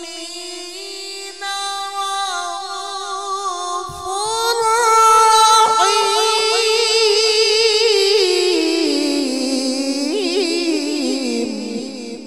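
A qari's Quran recitation (tilawat) in melodic tajweed style, amplified through a microphone: one long drawn-out vowel that climbs to a higher pitch about four seconds in, wavers through ornamented turns, then steps down in pitch and fades near the end.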